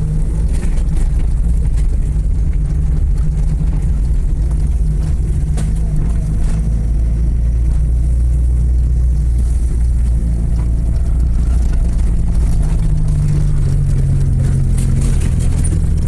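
Vehicle engine running steadily while driving, a continuous low drone with a few light rattles.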